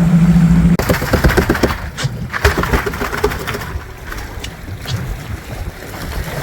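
A boat engine runs with a steady low hum and cuts off abruptly less than a second in. After that there are scattered clicks and knocks, with wind on the microphone.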